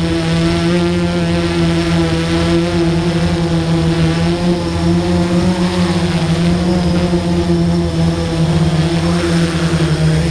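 Onboard sound of a small camera aircraft's motors and propellers, a steady hum made of a few evenly spaced tones that waver slightly as it comes down and sets down in the grass. The pitch drops near the end as the motors slow on landing.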